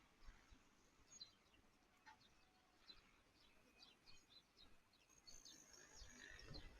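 Faint chirping of small birds: quick, high chirps in a loose series, getting busier near the end.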